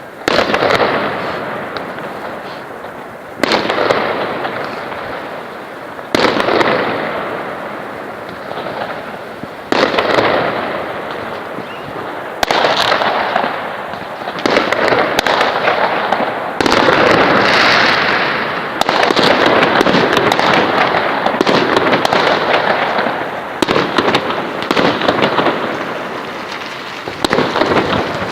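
Fireworks salute: shells bursting one after another, each a sudden bang every two to three seconds trailing off into crackle, running together into an almost continuous barrage through the middle of the stretch.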